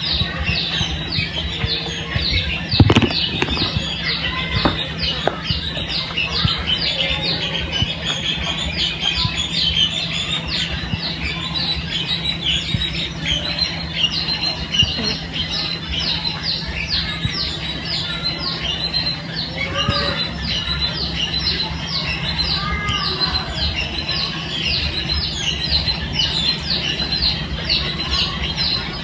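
Small birds chirping without pause, several short falling chirps a second, over a low steady hum, with one sharp knock about three seconds in.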